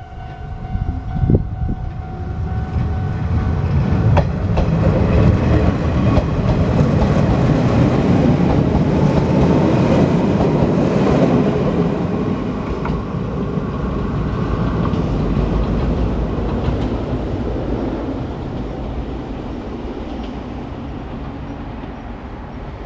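Izuhakone Railway Daiyuzan Line electric train passing over a level crossing, its wheels clattering over the rail joints. The sound builds to a loud peak partway through and slowly fades as it draws away. A steady high tone sounds at the start and cuts off about a second in.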